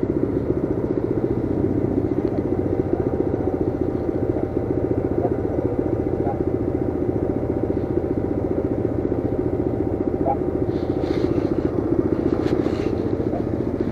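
Coleman CT200U mini bike's small single-cylinder four-stroke engine running at a steady speed while riding on snow, with a red ATV's engine running close alongside.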